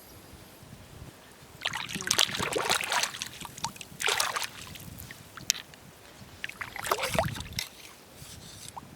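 Wet scraping and splashing in sand and shallow water, in three bursts, from digging out clams and sea snails on a tidal flat.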